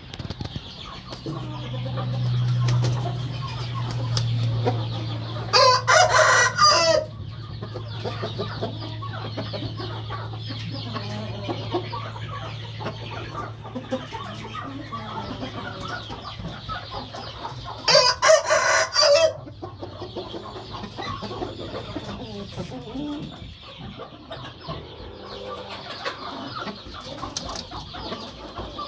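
A rooster crows twice, short loud crows about twelve seconds apart, each lasting a second and a half. Chickens keep up a quieter clucking between them.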